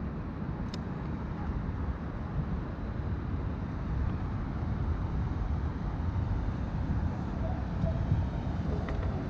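Steady low rumbling noise of wind buffeting an action camera's microphone on open water, with a single faint click under a second in.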